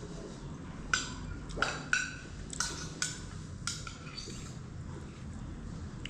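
Dishes and spoons clinking at a meal: about six sharp, ringing clinks in the first four seconds, then quieter.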